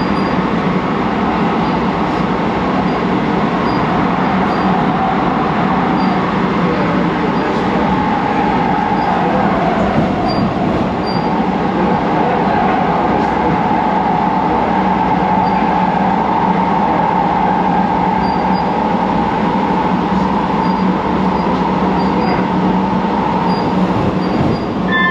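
Siemens P2000 light-rail car running at speed, heard from inside the cabin: a loud, steady rumble of wheels on rail with a constant low hum and a whine that rises a little about eight seconds in.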